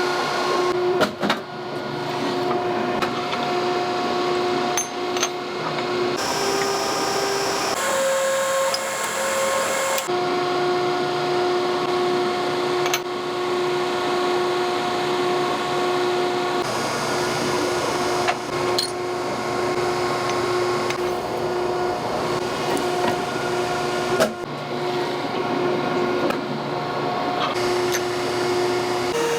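Factory machinery running with a steady hum and whine made of several held tones, changing abruptly every few seconds as the sound switches between machines, with a few sharp clicks.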